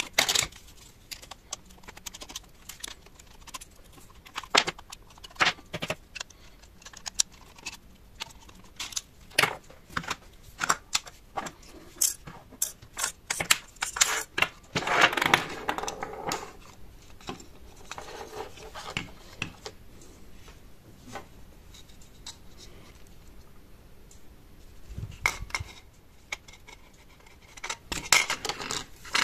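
Hand disassembly of a Zoom H3-VR recorder: a string of sharp clicks and small rattles from screws and plastic casing parts being handled, with a longer scraping stretch about halfway through.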